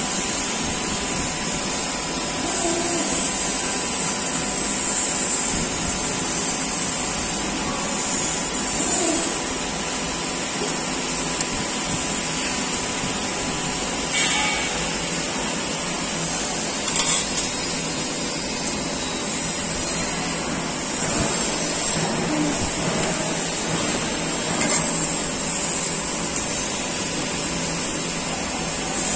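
JFY CNC press brake running with a steady mechanical hum from its hydraulic drive while sheet-metal parts are bent, with a few short knocks spread through it.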